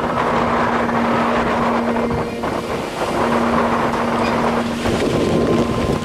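Wind buffeting the microphone and water rushing past a boat under way at sea, with a steady low drone underneath.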